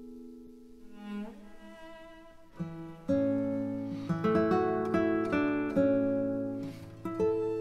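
Background music: slow notes on a plucked string instrument, each ringing and fading, growing fuller with a low bass line about three seconds in.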